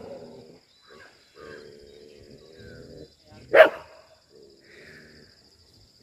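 Street dogs in a pack: one dog barks once, loudly and sharply, about three and a half seconds in, with fainter low sounds coming and going before and after it.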